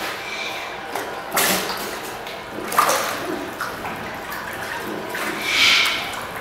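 Seal pups splashing and moving about in a small pool, water sloshing throughout, with three louder splashes, the last near the end.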